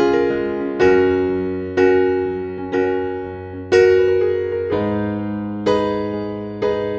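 Background music of slow keyboard chords, a new chord struck about once a second and each fading before the next.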